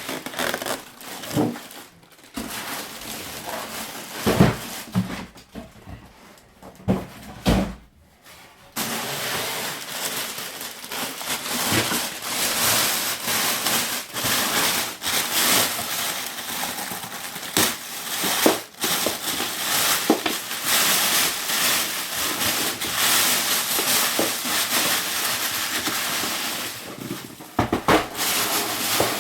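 Printer packaging being unpacked by hand: scattered knocks and taps, then from about nine seconds a long, continuous crinkling rustle of packing material that stops near the end.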